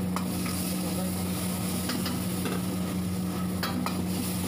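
Metal ladle stirring sliced onions and peppers in a steel wok over a high gas flame, the vegetables sizzling, with a few sharp clinks of ladle against wok. A steady low hum runs underneath.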